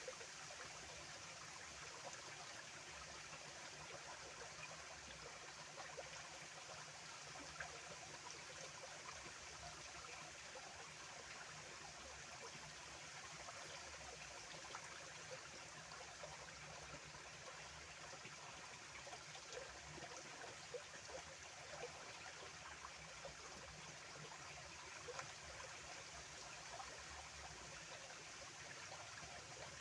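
Small stream of water flowing steadily and faintly, with a soft trickle and scattered small splashes.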